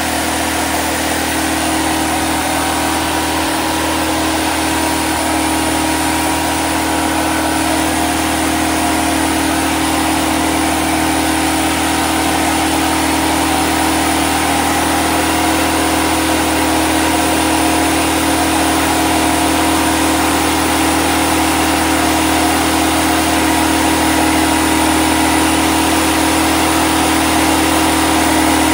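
Portable generator's engine running steadily, a constant-pitched hum that holds the same level throughout.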